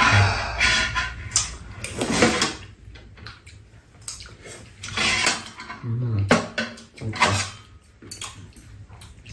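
Eating with metal spoons from a pan and bowls: spoons clinking and scraping on the dishes, mixed with chewing and slurping of stir-fried octopus, in short irregular bursts.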